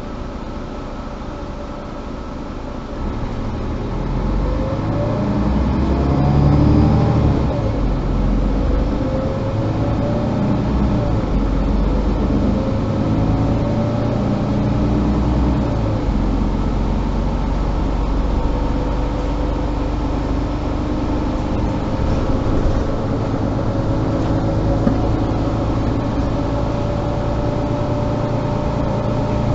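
Mercedes-Benz Citaro G articulated diesel bus heard from inside while riding. It pulls away about three seconds in, its engine pitch rising and dropping several times as it gathers speed, then it runs steadily.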